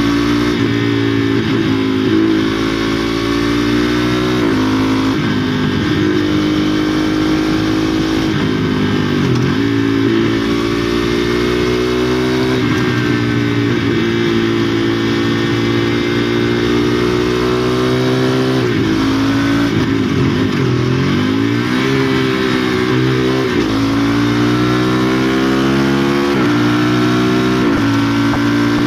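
2016 KTM Duke 390's single-cylinder engine with a de-catted (no-cat) exhaust, heard from the bike while riding. The revs repeatedly climb and drop back through gear changes and throttle on and off.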